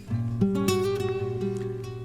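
Background music played on a plucked string instrument: several notes struck in quick succession about a tenth and half a second in, then left ringing and fading.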